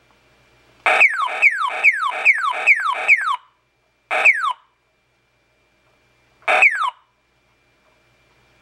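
New Star Corporation Bichorn electronic sound-effects horn sounding falling 'zap' tones: six quick downward sweeps in a row, about two and a half a second, then two single sweeps a couple of seconds apart.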